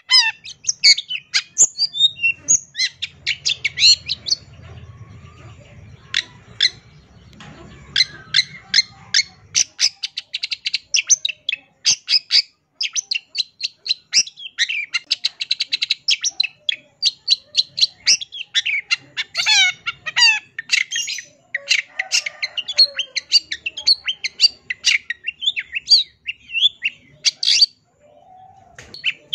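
Long-tailed shrike singing a fast, unbroken stream of sharp chattering notes and quick gliding phrases, its varied song full of mimicked calls (isian). The song pauses briefly near the end.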